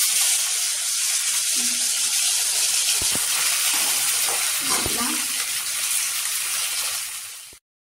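Tomato wedges sizzling in hot oil in an aluminium kadai, a loud, steady frying hiss just after they go in. There are two knocks on the pan about three and five seconds in. The sizzle cuts off suddenly near the end.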